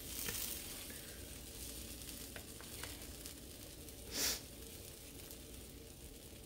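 Grilled cheese sandwich frying in a skillet, a faint steady sizzle, with a couple of light clicks and a short, louder burst of hiss about four seconds in.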